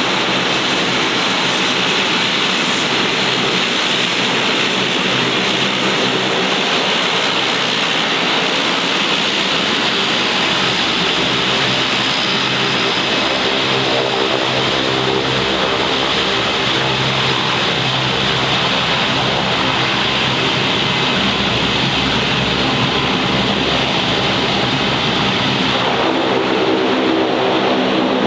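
Bombardier Dash 8 Q400's turboprop engines and propellers running steadily: a loud hiss over a stack of low propeller tones. The propeller tones grow stronger near the end.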